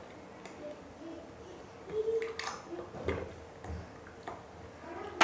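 Thick banana milkshake being poured from a blender jar into small glass tumblers, with a few soft clicks and knocks of the jar and glasses partway through.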